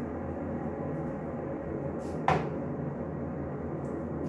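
A single sharp hard knock about two seconds in, over a steady low hum.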